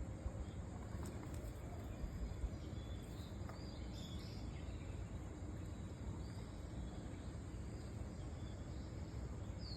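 Outdoor ambience: a steady low background noise with a few faint bird chirps about three to four seconds in and again near the end.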